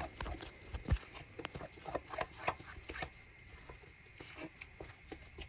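Metal fork working a buttery egg-and-flour dough in a glass bowl: quiet, irregular clicks and scrapes of the fork against the glass with soft squishing of the dough.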